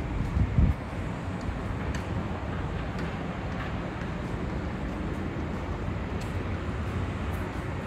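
Steady city traffic rumble from nearby roads, with a brief low thump about half a second in and a few faint ticks.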